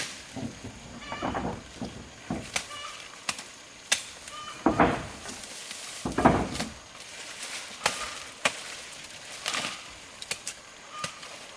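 Irregular sharp knocks and clicks, a dozen or more, with short high-pitched calls between them and two louder rustling or scraping swells about five and six seconds in.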